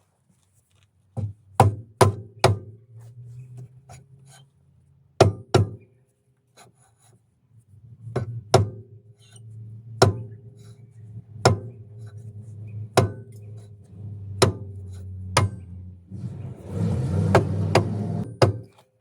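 Hammer blows on a VAZ 21099's rear brake drum: about fifteen sharp metallic strikes, often a second or more apart, with a ringing tone lingering between them. Near the end there is a rougher scraping noise under the blows.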